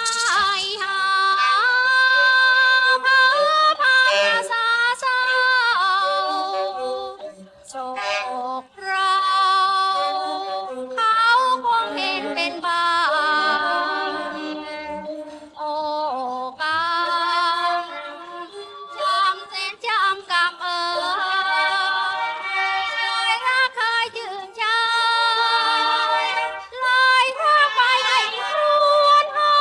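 A woman's solo singing voice, isolated from its backing track, singing slow drawn-out phrases of a Thai song with a wavering vibrato and short breaths between them.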